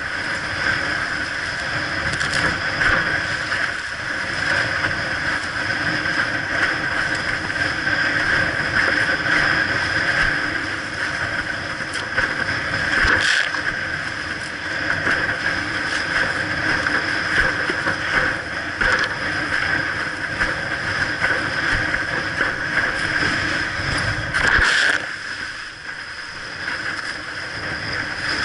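Windsurf board planing fast over chop: a steady rush of wind and water, with the hull slapping the waves now and then. A loud slap comes near the end, after which the deep rumble drops away.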